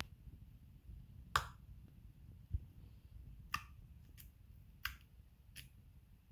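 Slime being pressed and stretched, trapped air popping out in a series of sharp little pops, about half a dozen, roughly one a second.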